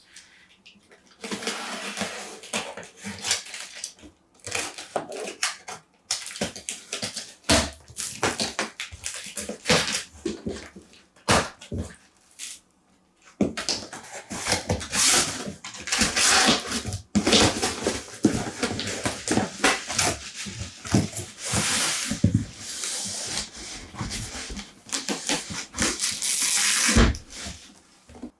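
Irregular hands-on working noise on the rusty PC-9821An's parts: rough scraping and rubbing strokes mixed with clicks and knocks, coming in bursts with short pauses.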